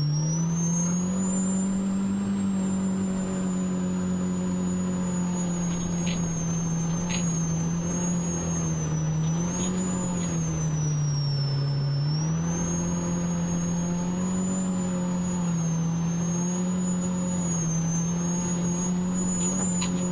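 Polaris RZR Pro R's 2.0-litre four-cylinder engine running at a steady cruise while driving, its pitch easing off and picking back up around ten and twelve seconds in. A thin high whine rises and falls with it.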